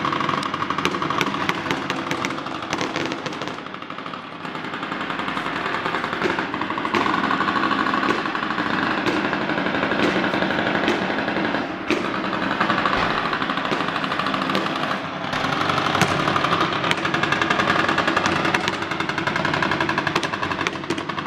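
Fireworks display: a dense, continuous crackle of rapid pops and bangs, with a few sharper, louder reports standing out now and then.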